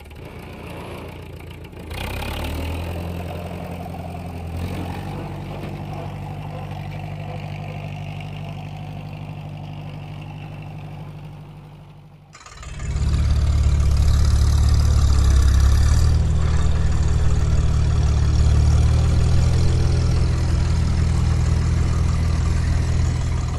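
Tractor engine running steadily with a low hum. About halfway through it drops away and comes back louder a second later.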